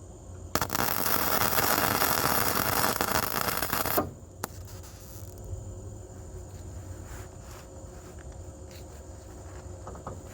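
Flux-core wire welder (Harbor Freight Titanium 125) running an arc for a single weld of about three and a half seconds: a loud crackling hiss that starts abruptly about half a second in and cuts off sharply. A low steady hum sits underneath.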